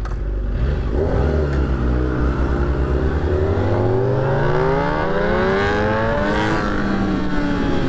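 2009 Kawasaki ZX-6R's inline-four engine under hard throttle, revs climbing steadily for about five seconds, then easing back down near the end, with wind rush over it. The rider finds this engine short of low-down torque and all top end.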